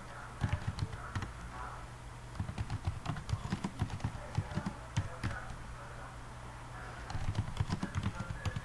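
Typing on a computer keyboard: three runs of quick key clicks with short pauses between, over a steady low hum.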